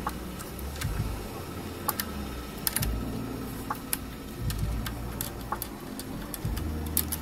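Scattered light metallic clicks of a combination spanner on a motorcycle's front brake caliper bolt as the bolt is loosened and handled, over a low rumble.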